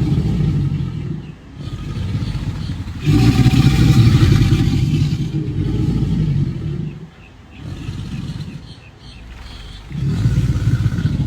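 American alligator bellowing: a deep, rumbling growl in repeated bouts, loudest from about three to five seconds in. It is the call alligators use to communicate and attract mates.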